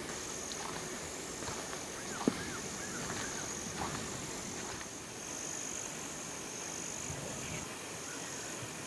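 A chorus of insects trilling high and steady in long pulses, with a few short chirps and one sharp click about two seconds in.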